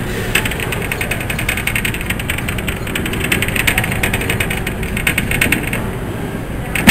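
Claw crane machine running as the claw drops and lifts: a steady motor hum with rapid ticking.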